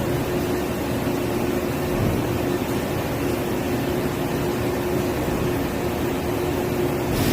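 Factory machinery running steadily: even mechanical noise with a constant mid-pitched hum. Near the end a brighter hiss comes in.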